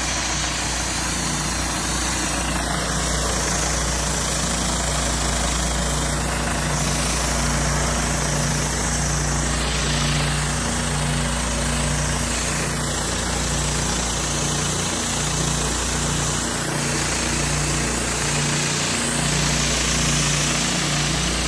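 Whisper Wash Maxima 36-inch surface cleaner running on concrete: its spinning spray jets make a continuous hiss over the steady running of the pressure washer's engine.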